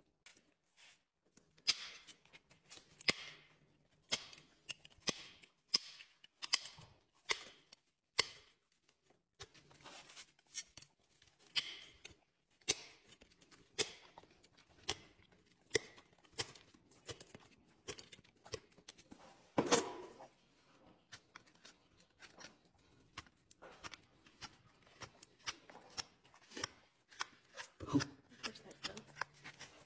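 Farrier's hand tools working a horse's shod hoof: a run of sharp snips and scraping strokes, about one or two a second, with one louder crack about two-thirds of the way through.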